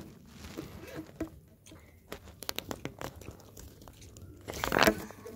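Corrugated plastic pop tube toy being stretched and squashed close to the phone: a quick run of small clicks and crackles as its ridges snap, then a louder short rustling burst about four and a half seconds in.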